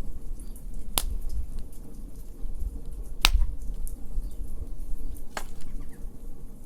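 Wood fire crackling, with three sharp pops about two seconds apart and fainter ticks over a low rumble.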